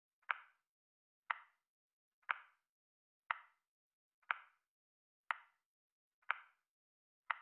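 Countdown timer's tick sound effect: one short, sharp click each second, evenly paced, marking each second of the countdown.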